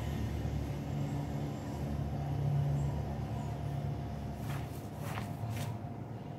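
Low rumble of background traffic that swells about halfway through and eases off, with a few short scratches of a pencil on paper near the end.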